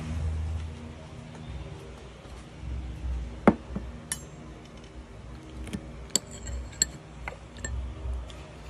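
A metal fork clinking against a glass bowl, a handful of separate sharp clinks with a brief high ring, the loudest about three and a half seconds in and a few more close together near the six- to seven-second mark.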